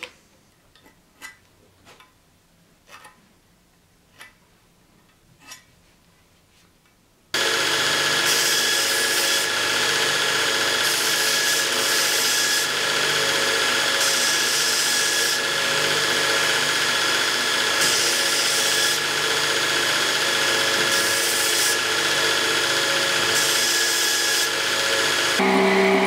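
A few light clicks and taps of metal hilt parts being fitted by hand, then a belt grinder starts up suddenly about seven seconds in and runs steadily. A metal hilt part is pressed to the abrasive belt in repeated passes, each adding a brighter grinding hiss for a second or two.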